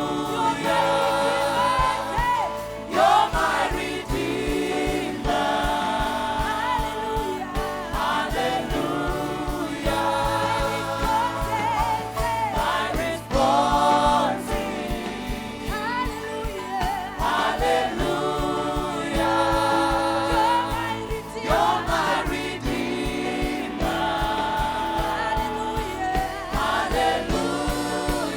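Church worship band and choir performing a gospel song: singing voices over a steady beat with bass.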